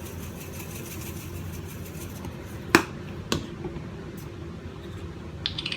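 Two sharp clicks about half a second apart, the first louder, as a kitchen utensil or container knocks while ground black pepper is added to the marinade; a few faint ticks follow near the end.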